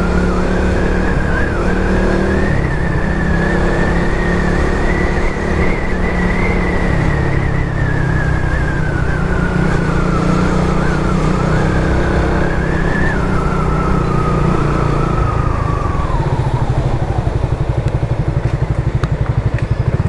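Suzuki Raider 150 Fi's single-cylinder four-stroke engine running as the bike is ridden, its pitch climbing over the first few seconds and holding. From about thirteen seconds in the pitch falls away as the bike slows, and near the end the engine runs slowly with an even pulsing beat.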